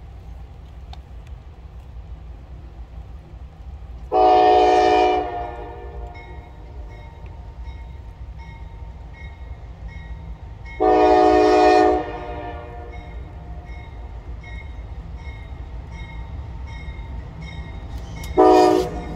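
Norfolk Southern freight locomotive's multi-chime air horn sounding two long blasts several seconds apart, then a short one near the end: the long-long-short opening of the grade-crossing signal as the train approaches. A steady low rumble runs underneath.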